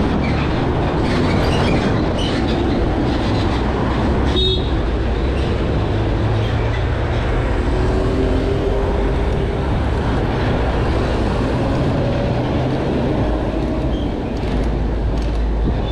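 Steady rumble of wind on the microphone and road noise while riding a bicycle, with one short sharp click about four and a half seconds in.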